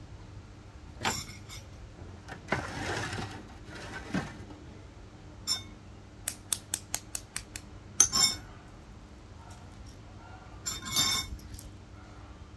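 A spoon tapping an egg's shell to crack it, in a quick run of about eight taps near the middle. Around it come single clinks of spoon on dishes and the crackle of the shell being peeled off by hand.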